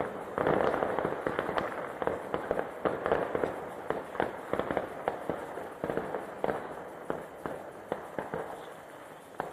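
Fireworks going off: a rapid, irregular string of bangs and crackles, dense at first and thinning out and getting fainter toward the end.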